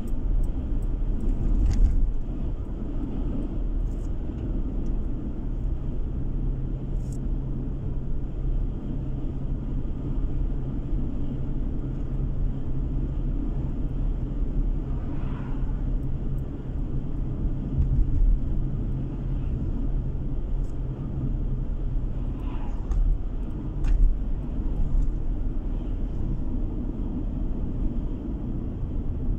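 Car driving at a steady speed, heard from inside the cabin: a continuous low rumble of tyres and engine, with a steady hum through the middle of the stretch and a few short knocks.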